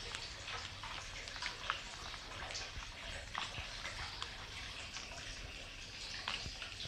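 Kittens pawing and clawing at a sandal: irregular light clicks and scratches over a steady hiss and low hum.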